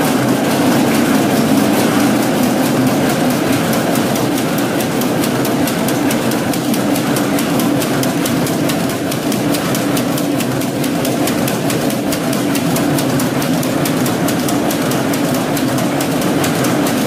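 Velvet rapier loom with electronic dobby running at production speed: a steady, rapid, even clatter of beats with a steady hum underneath.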